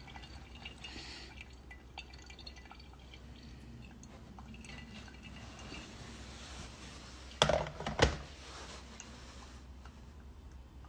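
Water slowly dripping and trickling as coffee is brewed by hand, the water wetting the grounds. Two sharp knocks about seven and eight seconds in.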